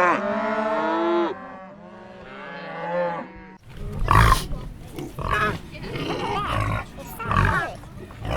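Cow mooing: a long, steady low call that ends about a second in, then a fainter, wavering moo. About three and a half seconds in, a different animal takes over with a run of short, rough grunts, roughly one a second.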